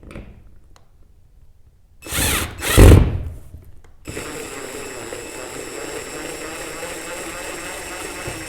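Power drill driving a mounting screw. Two short loud bursts come about two seconds in, then the drill runs steadily for about four seconds and stops at the end.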